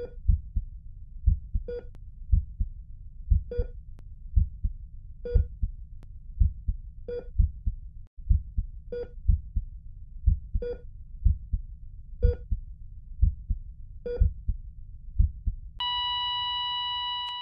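Heartbeat sound effect: steady low thumps about two a second, with a short electronic heart-monitor beep about every second and three-quarters. Near the end the beeping gives way to one continuous flatline tone that cuts off suddenly.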